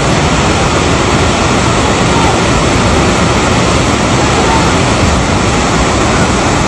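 Floodwater of a swollen river rushing under and against a bridge: a loud, steady wash of churning water noise.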